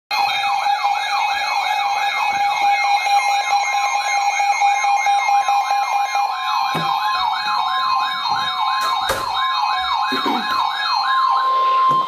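Several Midland NOAA weather radios sounding their alert for a flash flood warning: a fast warbling siren, about three sweeps a second, over a steady alarm tone that steps up in pitch about halfway through. A few knocks come in the second half, and the alert cuts off just before the end.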